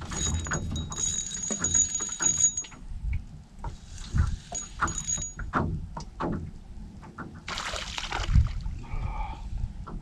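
Water slapping against an aluminium jon boat's hull, with scattered knocks on the boat, while a bass is fought on a spinning rod. A high, steady whine from the spinning reel comes in two stretches in the first half, and there is a splash about three-quarters of the way through.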